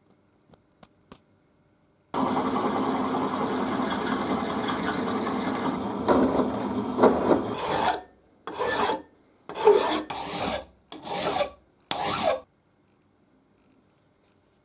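Metal of a rusty shear being rasped by hand, possibly with a file: a long continuous stretch of rasping, then five short separate strokes.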